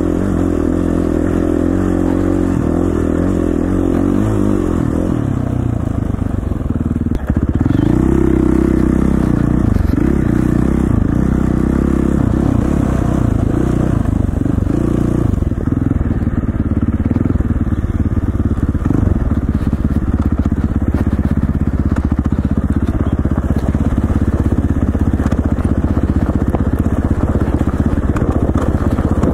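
KTM 450 dirt bike's single-cylinder four-stroke engine running under way, the revs rising and falling with the throttle. About seven seconds in the sound dips briefly, then picks up again a little louder.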